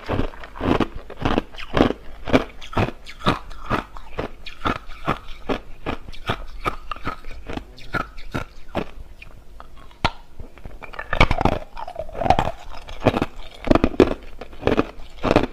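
Hard clear crushed ice being crunched and chewed in the mouth, close to the microphone: rapid, irregular crunches, softer for a few seconds in the middle and loud again near the end.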